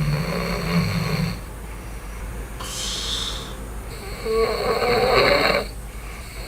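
A man snoring in his sleep while wearing a nasal-plug anti-snoring device that fails to stop it, one snore per breath, the loudest about four seconds in. The airway is blocked on the in-breath.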